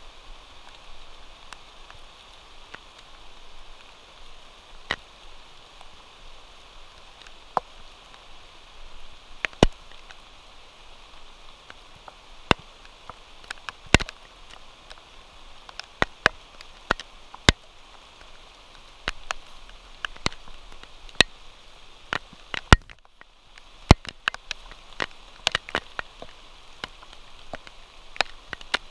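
Steady rain hiss with irregular sharp taps of drops landing close by, a few of them loud.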